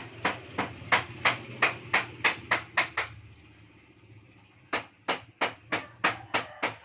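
Quick, even massage strokes on a person's bare back during kerokan, about three a second: a run of about ten, a pause of under two seconds, then another run starting.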